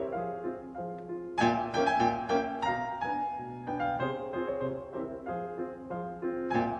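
Instrumental background music: a melody of struck, decaying notes over lower chords, with a louder phrase entering about a second and a half in.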